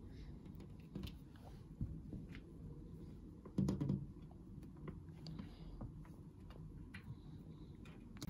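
Light, scattered taps on a window pane, with a louder cluster of knocks about three and a half seconds in.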